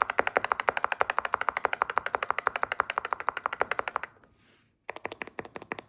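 Finalmouse Centerpiece Pro keyboard being typed on fast, a rapid even run of key clicks, about ten a second. After about four seconds it pauses briefly, then a few slower keystrokes follow.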